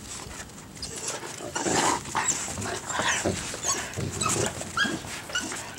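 Small dog whining and whimpering in short, high-pitched whines, many times over, with brief scuffling noises between them.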